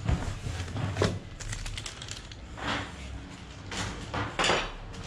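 Household objects being handled: a knock at the start and another about a second in, a few light clicks, then three short scraping or rustling sounds.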